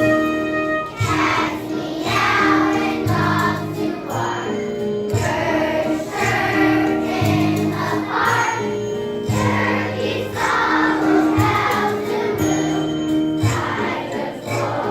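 A group of children singing together as a choir, with instrumental accompaniment.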